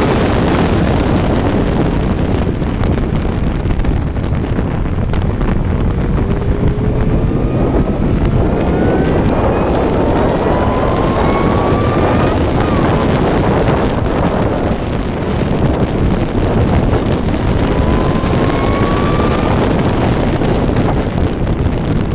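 Racing vehicle's engine heard onboard at speed, under heavy wind buffeting on the microphone. The engine note climbs in several long rising sweeps, each breaking off and starting again lower, as it pulls through the gears.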